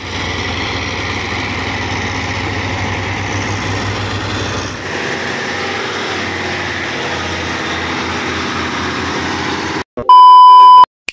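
Diesel engines of logging trucks running steadily, changing after about five seconds to a tracked excavator's engine running. Near the end the engine sound cuts off and a loud, steady test-pattern beep sounds for under a second.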